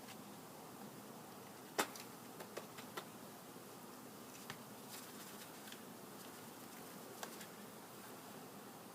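A colony of newly installed package honeybees buzzing steadily in and around the hive, a hum the beekeeper says has increased quite a bit since the bees were shaken in. A few sharp clicks cut through, the loudest about two seconds in.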